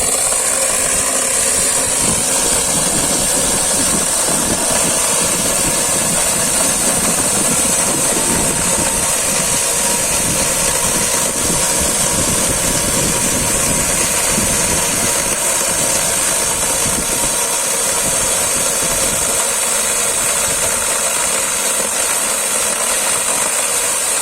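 Chainsaw running steadily at a constant speed, with a strong high-pitched whine over the motor noise.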